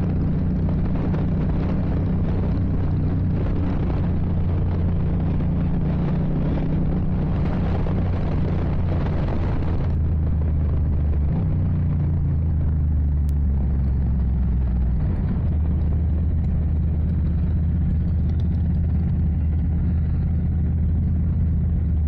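Motorcycle engine running steadily while riding, with a rush of wind and road noise over it. The rush eases about ten seconds in, and the engine note shifts a little after that.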